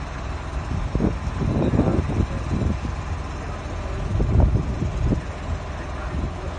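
Wind buffeting the microphone: a steady low rumble with irregular gusty surges.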